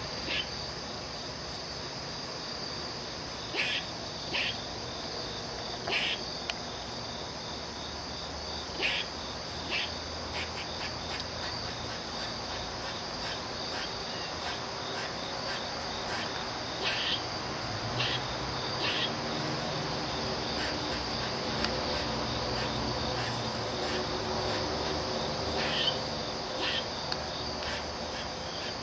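A squirrel giving short, sharp alarm calls, singly and in quick runs at irregular intervals, over a steady high insect drone.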